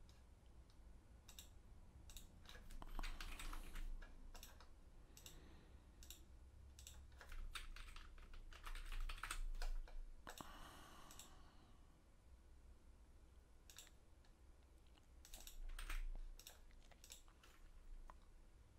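Faint typing on a computer keyboard: three short runs of key clicks, with single clicks scattered between them.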